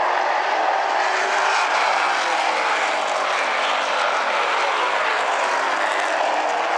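Super late model stock cars' V8 engines running hard in a pack. It is a steady drone, with engine notes rising and falling as the cars pass.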